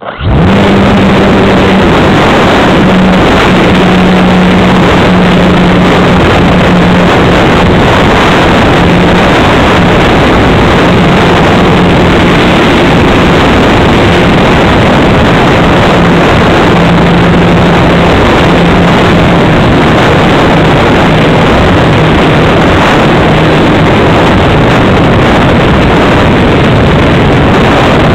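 RC model airplane's motor and propeller running at high power, heard from a camera mounted on the plane: a steady drone that wavers slightly in pitch, over loud wind rush on the microphone. It starts abruptly at the hand launch.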